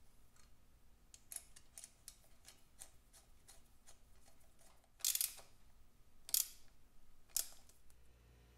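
Small metal clicks and scrapes as an oil-line union fitting is worked and tightened by hand on a vintage motorcycle engine: a run of light clicks about three a second, then three sharper clicks over the last few seconds, the first a short scrape.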